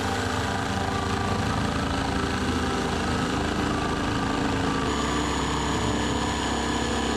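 Cordless Milwaukee M18 FUEL jigsaw running steadily as it cuts through a wooden board. Its sound shifts a little about five seconds in.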